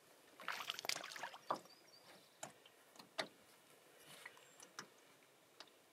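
Faint handling sounds of a spinning rod and reel in a wooden canoe while a hooked fish is played: a busy patch of rustling and clicks in the first second and a half, then scattered single ticks and knocks.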